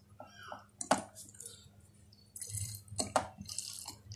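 Black ink squeezed from a plastic refill bottle into a CISS reservoir tube, with liquid squelching and dripping. Sharp plastic clicks come through it, the loudest about a second in and two more close together near three seconds.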